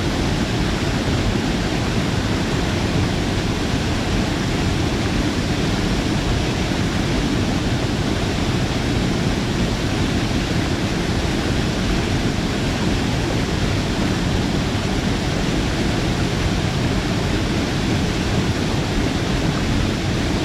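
Waterfall pouring into its pool: a steady, dense rush of falling water, strongest in the low range.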